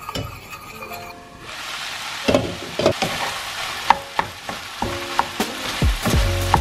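Ground meat and vegetables sizzling in a frying pan, stirred with a wooden spoon that knocks and scrapes against the pan. The sizzling starts about a second and a half in.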